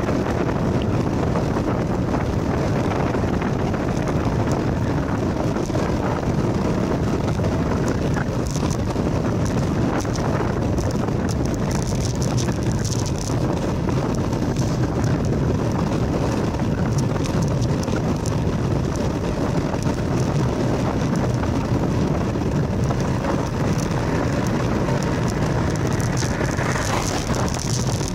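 Steady wind noise rushing over the microphone of a moving camera, with rolling tyre noise from the road underneath.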